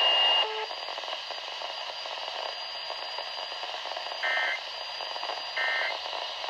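Steady radio static hiss, then two short buzzy bursts of EAS digital data tones about a second and a half apart, starting about four seconds in. These are the repeated end-of-message code that closes an Emergency Alert System warning.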